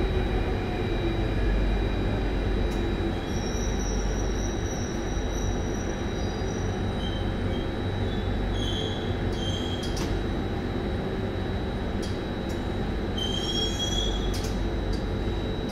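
SMRT C830 Alstom Metropolis metro train running on the Circle Line with a steady rumble, broken by several brief high wheel squeals over the middle of the stretch.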